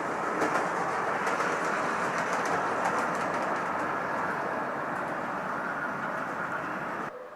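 A train passing on the line: steady rolling noise of steel wheels on rail, with rapid clicks over the rail joints. It stops abruptly near the end.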